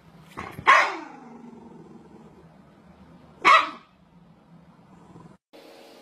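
Small dog barking twice, a sharp bark about half a second in that trails off in a falling note, and a second bark about three and a half seconds in.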